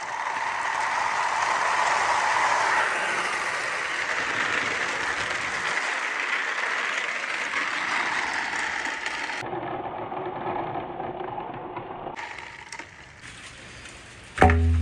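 Marbles and a rider piece rolling down a long wooden marble-run track, a steady rattling rumble that fades after about nine seconds. Near the end a sudden loud low tone cuts in.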